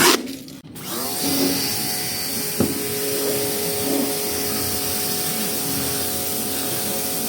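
Electric pressure washer running steadily: a motor whine with several fixed tones under a loud spray hiss, starting about a second in.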